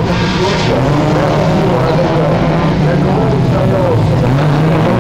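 Several autocross race cars' engines running hard around a dirt track, a steady mixed engine drone whose pitch wavers as they rev and lift.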